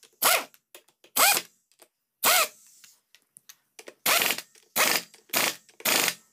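Ratchet wrench tightening the 10 mm nuts on a motorcycle clutch plate in short strokes. There are seven bursts of ratchet clicking, three about a second apart, then four quicker ones.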